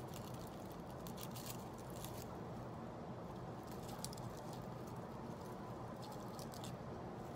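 Dried rosemary and rose stems rustling and crackling as the brittle bunch is shaken and handled, in several short crisp spells.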